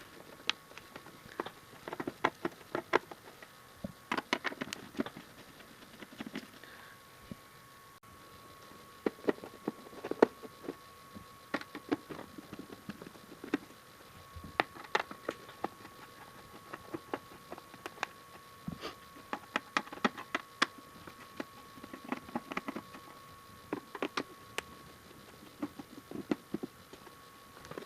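Irregular clicks, taps and light knocks of plastic and metal parts being handled while the front panel of a DVD player/amplifier is worked loose, with a faint steady whine underneath.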